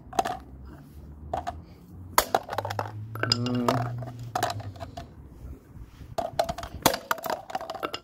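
Hard plastic Calor Aquagliss toy iron clacking and scraping on concrete as it is picked up and turned over, a string of sharp knocks and clicks.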